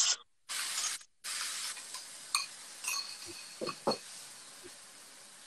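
Chopped tinned tomatoes hitting a hot frying pan of fried onion masala and sizzling, first in three short bursts, then as a steady sizzle that slowly dies down while they are stirred. A few clinks of a spoon against the pan and bowl come in the middle.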